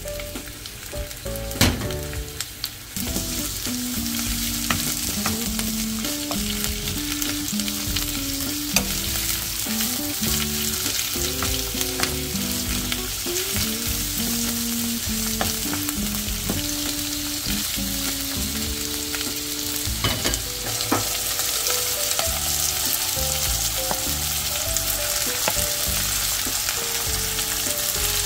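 Food frying in hot oil in a wok: steady sizzling that gets louder about three seconds in, with a spatula stirring and clicking against the pan now and then.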